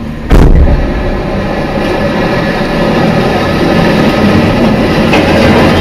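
A heavy crash of scrap metal about a third of a second in, then a continuous loud clattering rumble as the load of metal keeps tumbling and sliding out.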